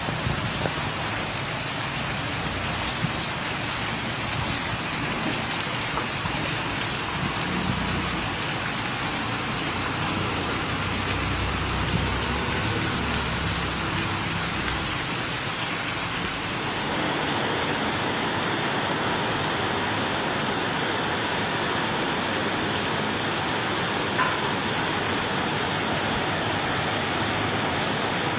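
Heavy rain pouring down steadily. About sixteen seconds in it becomes a louder, fuller downpour.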